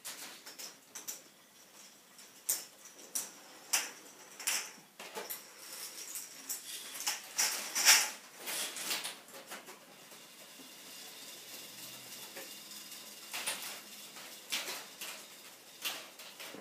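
A K'Nex fruit machine's plastic mechanism at work: irregular clicks and clacks as its number reels turn and its parts move, the loudest clack about eight seconds in. A faint steady whine runs under the clicks in the second half.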